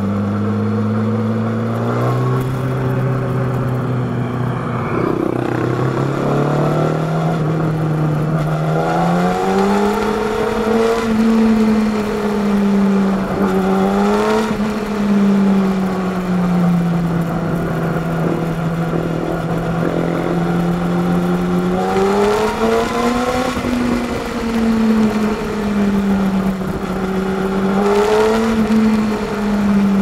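Yamaha R6 (RJ11) 600 cc inline-four engine running through an SC-Project aftermarket exhaust while being ridden at moderate revs. Its note rises and falls gently with the throttle, with a step up in pitch in the first couple of seconds.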